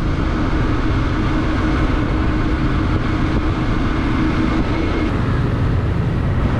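Bajaj Dominar 400's single-cylinder engine running steadily under way, with wind noise on the microphone. The engine note shifts a little about five seconds in.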